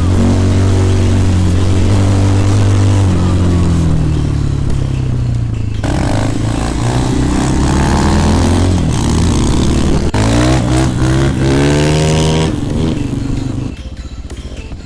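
Single-cylinder 250 cc enduro motorcycle engines running hard and revving, the pitch sagging, then climbing in repeated rising sweeps as the throttle is opened. The sound changes abruptly about six seconds in and again near the end, where it becomes quieter.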